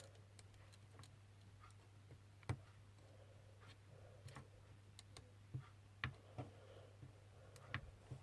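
Faint, scattered small clicks and taps of iPhone 6 parts being handled as the ribbon cable connectors are pressed onto the board, a few sharper than the rest, over a steady low hum.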